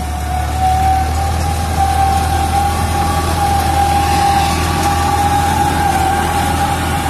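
Eicher 557 tractor running under load with the PTO-driven Agristar mulcher spinning as it shreds rice straw: a steady high whine from the mulcher drive over the low drone of the tractor engine.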